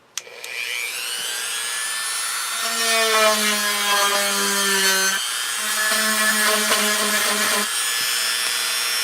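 Small handheld power drill spinning up and running with a steady whine, boring through a wooden embellishment. Twice, about three and six seconds in, the bit bites and the motor drops in pitch and buzzes under load.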